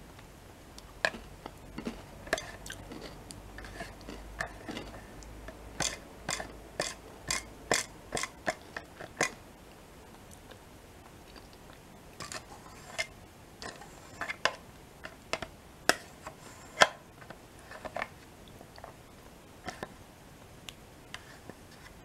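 Close-miked chewing of yogurt with crunchy bear-shaped biscuit pieces: sharp crunches and wet mouth clicks come in quick runs, thickest about a third of the way in and again past the middle.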